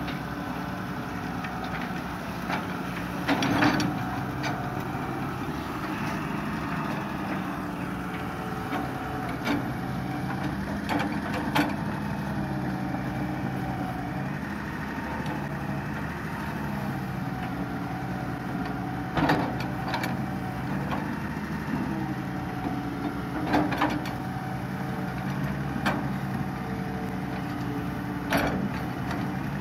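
Hitachi EX200 long-reach excavator's diesel engine running steadily under hydraulic load, its drone rising and falling a little as the arm works, with about five sharp knocks spread through.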